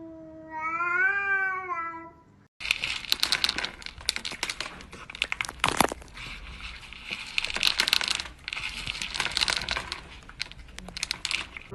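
A cat meowing in one long, drawn-out call that rises and falls in pitch and stops about two seconds in. After a break, a long stretch of crackling, scratchy noise with many sharp clicks follows.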